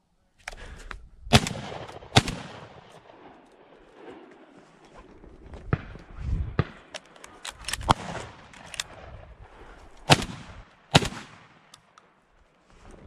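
Shotgun shots: a loud pair of cracks just after a second in, fainter cracks in the middle, and another loud pair near the end, each followed by a short echo.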